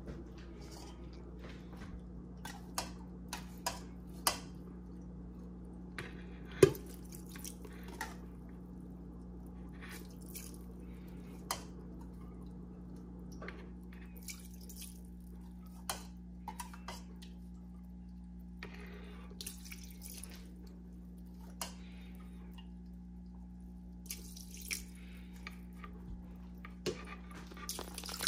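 Tank water poured from a small glass cup into a plastic bucket of Java moss, in scattered splashes and drips, with light knocks from the bucket and cup being handled. One sharp knock about a quarter of the way in is the loudest sound. A steady low hum runs underneath.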